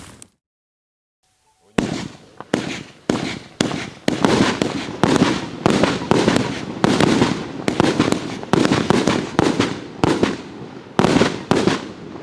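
A 108-shot fireworks cake with 30 and 36 mm tubes firing shot after shot. After a short silence the sharp reports begin a little under two seconds in, two or three a second at first, then coming faster and overlapping.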